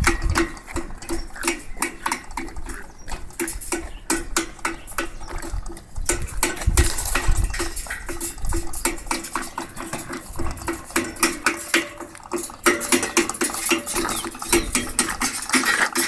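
Rapid, irregular metallic clattering and clinking, typical of loose steel parts such as a tiller's chain drive and blades rattling against its frame.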